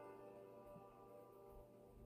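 Faint relaxing ambient music fading out, several held tones dying away toward near silence.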